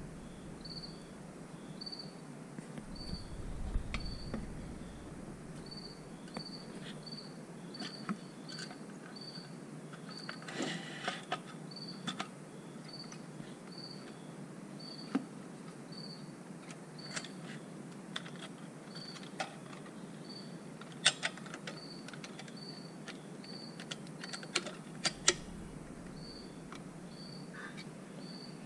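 Scattered light clicks and taps of small metal and plastic parts as a chainsaw's chain brake band and lever assembly are worked by hand into the crankcase. A cricket chirps steadily behind, in evenly spaced chirps.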